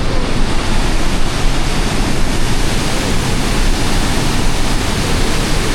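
Loud, steady rushing of the Pailón del Diablo waterfall, heavy water pouring and crashing close by.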